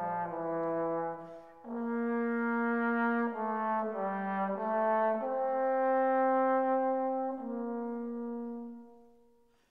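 Background music: a slow melody of long held notes in a brass-like, horn timbre, fading out near the end.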